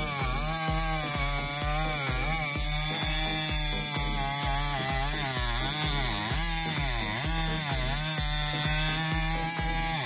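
Husqvarna 3120 XP two-stroke chainsaw with an expansion-chamber exhaust pipe cutting through a large log. Its engine pitch keeps dipping under load and recovering as the bar works through the cut. Background music with a steady beat runs underneath.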